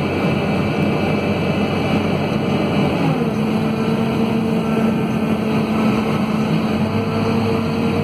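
Scania DC9 five-cylinder diesel engine of a Scania K230UB city bus running under way, heard from inside the cabin. About three seconds in its note glides down and then holds steady, as the ZF Ecomat automatic gearbox changes up.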